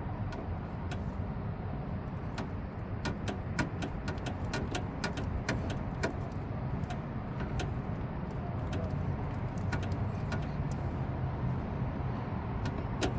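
Irregular small clicks and light metallic knocks from hand tools and the thermostat housing being worked loose in an engine bay, thickest a few seconds in, over a steady low rumble.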